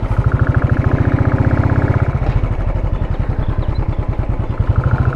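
Motorcycle engine idling with an even, rapid pulse.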